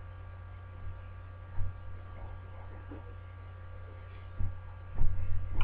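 Steady electrical mains hum picked up by a webcam microphone, with a few dull bumps, the loudest near the end.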